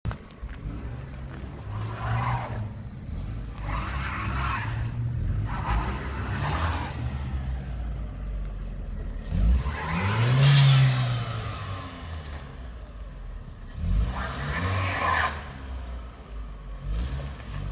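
Opel Zafira 1.8-litre petrol engine revving in a series of surges while only the left drive wheel spins and scrubs on ice with traction control switched off; the biggest rev rises and falls about ten seconds in.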